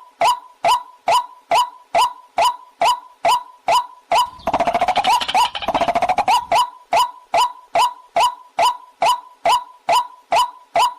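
Recorded waterhen (jal murgi) call: loud, down-slurred notes repeated evenly about twice a second. A little over four seconds in they give way for about two seconds to a louder, rapid chattering run, then the even notes resume.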